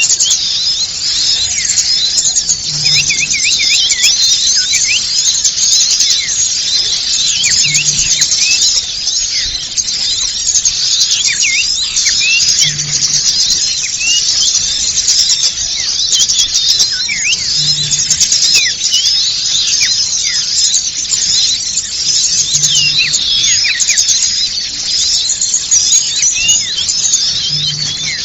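Bird-lure recording of many small songbirds chirping and twittering at once: a dense, unbroken chorus of quick, high-pitched calls, with a faint low blip about every five seconds.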